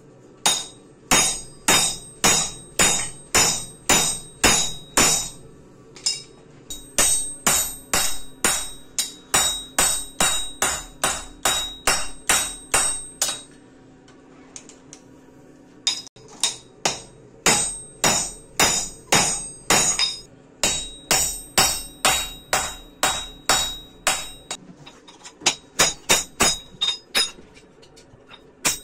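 Hammer blows on steel over an anvil, forging a fishtail gouge: runs of about two ringing strikes a second, broken by short pauses.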